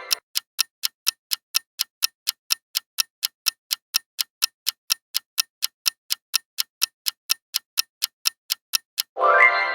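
Clock-like ticking of a quiz countdown-timer sound effect, steady at about four ticks a second. A ringing chime tone fades out at the start and another chime sounds near the end.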